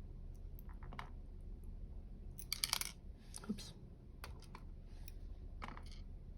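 Scattered small clicks and taps of tiny metal lock parts and tools being handled while a dimple lock is taken apart, with a quick cluster of clicks about two and a half seconds in.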